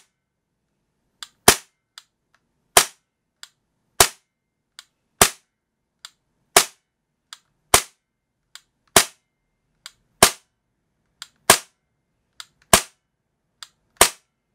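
Tokyo Marui USP9 gas blowback airsoft pistol firing single shots into a chronograph, eleven sharp cracks about 1.2 seconds apart, with a fainter click between each pair. The blowback is getting weaker as the gas magazine cools during the rapid magazine dump.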